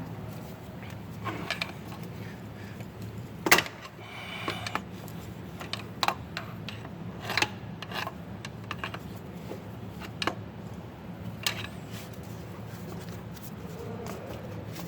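Hand tools clicking, knocking and scraping on metal while prying at the 6.4 Powerstroke's stuck, corroded EGR valve. The clicks come at irregular intervals, the sharpest about three and a half seconds in, over a steady low hum.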